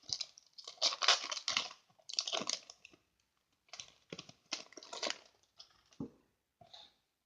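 A foil Pokémon booster pack wrapper crinkling and being torn open: dense crackling bursts, then scattered shorter crackles and a couple of taps.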